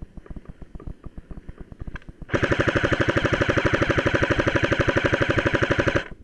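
Airsoft electric rifle firing one long full-auto burst of about three and a half seconds, rapid and even, that stops abruptly. Before it comes a quicker run of softer low thumps.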